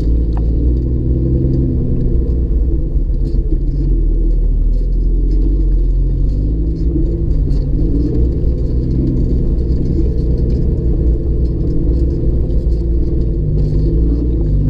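A Jeep driving on a dirt road, heard from inside the cabin: a steady low rumble of engine and tyres. The engine note drifts slightly up and down, with light rattles here and there.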